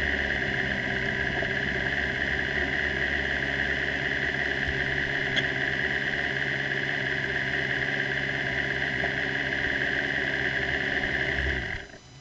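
Formula 3 single-seater's engine idling steadily at about 2,100–2,200 rpm, heard from an onboard camera. It is switched off near the end and the sound cuts away.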